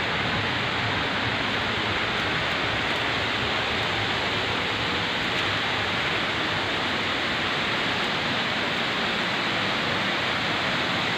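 Steady rushing roar of a waterfall, an even wash of falling water with no breaks.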